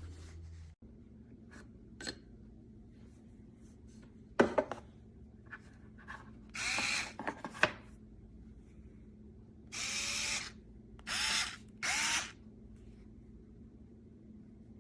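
HOTO 3.6 V cordless electric screwdriver running in four short bursts, each under a second, with a brief rising whine as the motor spins up. A few sharp handling clicks come before the first burst.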